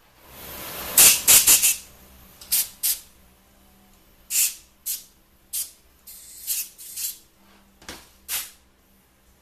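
Compressed-air blow gun fired in a dozen or so short, sharp blasts of hiss, clearing aluminum drill chips out of the freshly drilled passages of a 4R44E transmission valve body.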